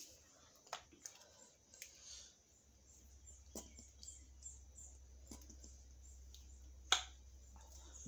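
Quiet eating sounds: scattered small mouth clicks and smacks while chewing momos, with one sharp click about seven seconds in, over a low steady hum.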